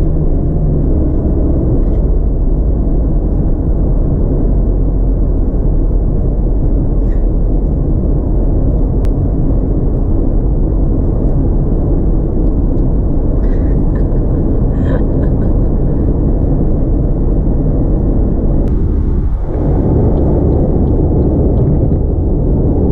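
Steady low rumble of road and engine noise heard from inside a moving car's cabin, broken briefly near the end.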